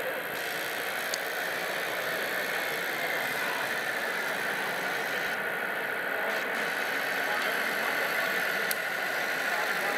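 A radio-controlled model municipal tractor running steadily as it sweeps with its front brush: an even whir with a faint high hum that drifts a little in pitch, and a couple of tiny clicks.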